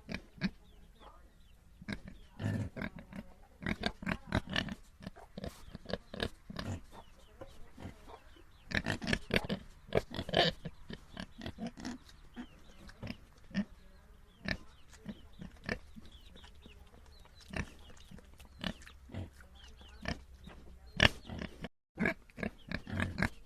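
Domestic pigs grunting in short, irregular bursts, busiest in a couple of flurries early on and around the middle; the sound cuts out for an instant near the end.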